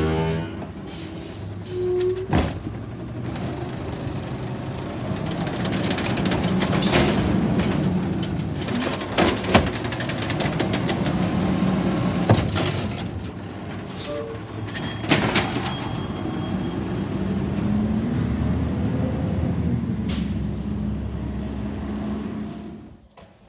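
Natural-gas-powered automated side-loader garbage truck running while its hydraulic arm lifts, empties and sets down a wheeled trash cart, with several sharp knocks and bangs from the cart and arm. The engine note rises near the end as the truck moves off.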